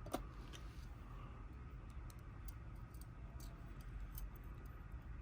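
Faint, scattered small clicks of tweezers and lock pins as pin tumblers are set into a Kwikset lock cylinder during rekeying, with one sharper click right at the start.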